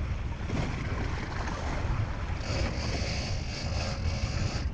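Boat under way at sea: a steady low rumble of engine, wind on the microphone and water, with a high hiss joining about halfway through.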